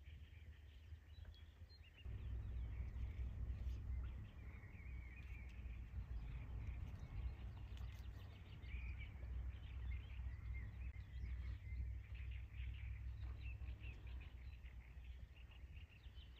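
Small birds chirping and twittering continuously, over a low rumble that gets louder about two seconds in.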